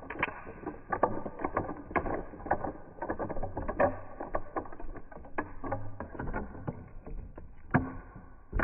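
A large chrome ball rolling along a wooden rail and knocking over a row of small wooden boards heaped with coloured powder: a run of irregular wooden clacks and knocks over a low rolling rumble, with two louder knocks near the end.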